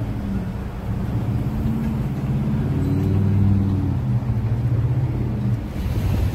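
Low, steady engine rumble with a hum that wavers slightly in pitch, dropping away near the end.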